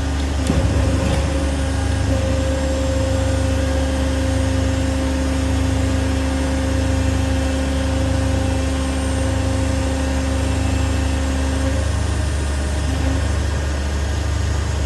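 Fasti CNC sheet-metal folding machine's electric motor drive running as it cycles a two-step program: a steady low hum with a motor whine that strengthens about two seconds in and cuts off about twelve seconds in, after a click at the start.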